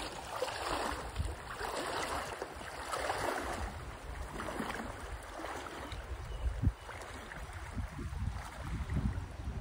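Water splashing and sloshing around a wader's legs as he walks through a shallow river, over the rush of the current. Wind buffets the microphone in the second half, and there is a single sharp bump about two-thirds of the way in.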